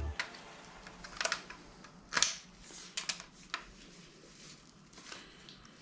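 A handful of light clicks and taps at irregular intervals, from gloved hands handling parts on a bare engine block.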